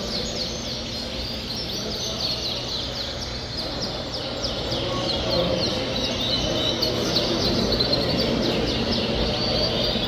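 Dozens of caged Yorkshire canaries chirping and singing at once: a dense, overlapping chorus of short high chirps.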